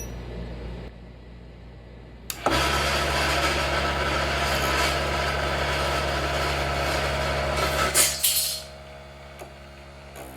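Vevor HS001 mini wood lathe switched on with a click about two seconds in, its motor running with a steady hum and a noisy whirr for about five seconds. A brief loud burst comes near the end, then the lathe stops and the sound drops away.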